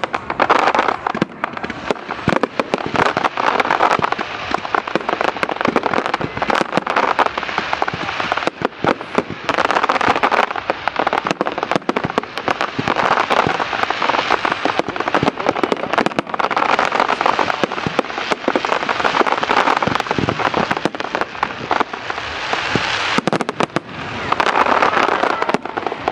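Fireworks display: dense, continuous crackling and popping from many fireworks at once, swelling louder in waves every few seconds.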